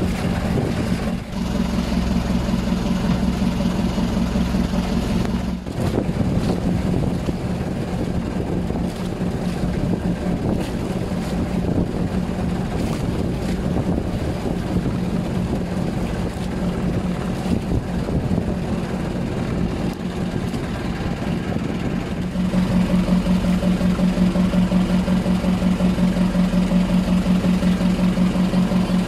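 Motorboat engine running steadily, growing louder and more pronounced about three quarters of the way in.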